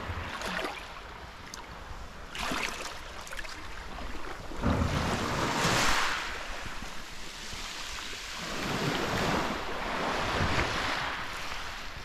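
Small sea waves breaking and washing over a pebble beach, surging three times a few seconds apart, the loudest surge about five to six seconds in.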